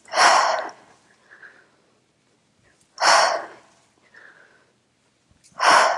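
A woman's forceful exhalations under effort, three sharp blown breaths about two and a half seconds apart with quieter inhalations between, one exhale for each repetition of a weighted squat-and-press.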